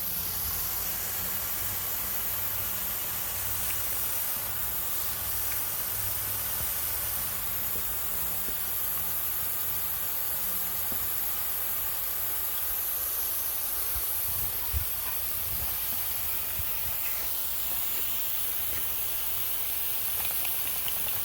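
Steady hiss of spraying water, with one short knock about fifteen seconds in.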